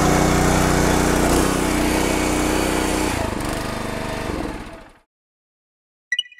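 Small engine of a PLOW GLS15PRO hydraulic log splitter running steadily, its tone shifting slightly a couple of times, then fading out about five seconds in. Near the end, a short bright chime.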